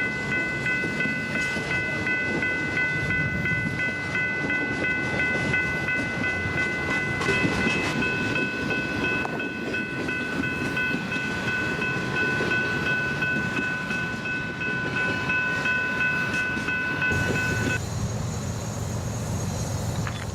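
Train rolling past with a steady rumble and clatter of wheels on the rails, over several steady high ringing tones. The ringing cuts off abruptly near the end and the rumble changes character.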